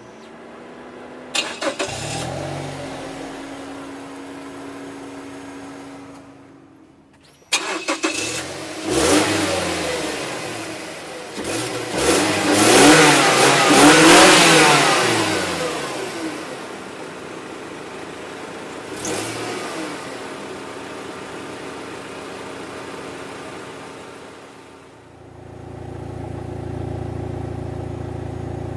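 Car engine starting, running briefly and stopping, then starting again and being revved several times. The longest rev climbs and falls away between about 12 and 15 seconds, with a short blip near 19 seconds. After that it settles into a steady idle.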